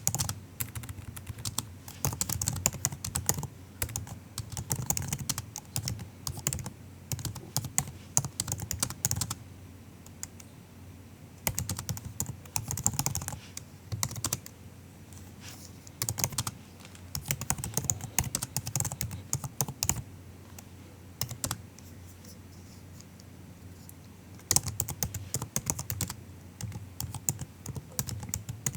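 Typing on a MacBook's built-in laptop keyboard: soft, quick key clicks in runs of a few seconds, broken by short pauses.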